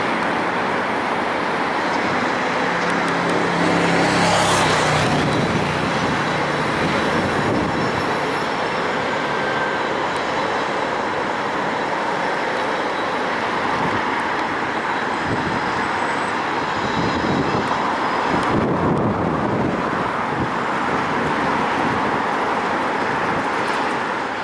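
ČKD ChME3T shunting diesel locomotive's six-cylinder engine running as the locomotive travels light, over steady city road traffic noise. Its low engine drone is strongest about four seconds in.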